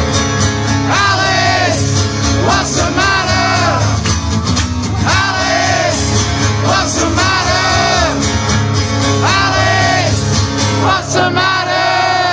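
Live band of two acoustic guitars with singing, voices belting a sung phrase that repeats about every two seconds, with shouts from the crowd joining in.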